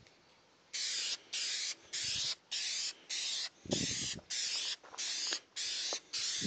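Aerosol spray can of Krylon Fusion flat black paint hissing in short, even bursts, about ten of them, each under half a second with brief gaps between, starting about a second in as a coat is sprayed on.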